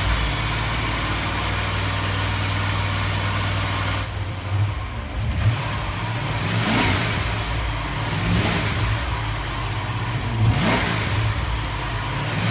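Ford 5.0 pushrod V8 running at a steady idle, then blipped by hand about five times from about four seconds in, each rev rising and dropping back to idle. The revs bleed air from the freshly filled cooling system.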